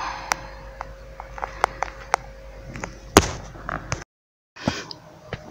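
A string of short sharp clicks and knocks over a faint steady hum, with one louder knock about three seconds in. The sound cuts out for half a second a little after four seconds in.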